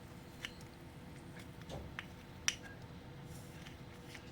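A few light, sharp clicks and taps, the clearest about two and a half seconds in, over a faint steady hum.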